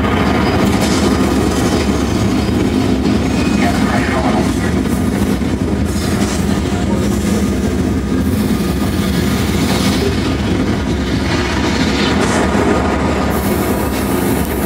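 Loud, steady rumbling sound effect from an immersive exhibit's speakers, accompanying a simulated descent from orbit back to Earth.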